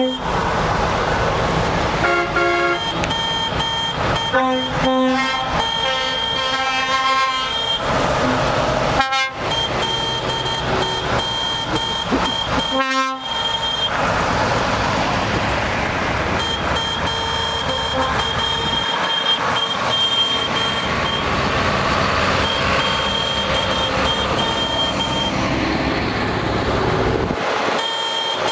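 A slow procession of heavy vehicles, a Volvo FH lorry and farm tractors, driving past with engines running, and horns tooted several times in the first eight seconds or so.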